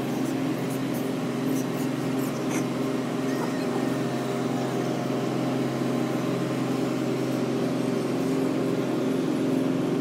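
Low, steady drone of a passing ship's engine, one unchanging hum with several overtones.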